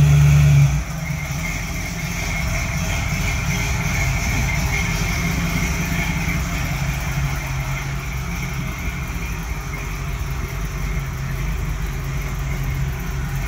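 The 1957 Galileo Special's engine running, louder for about the first second and then settling to a steady idle.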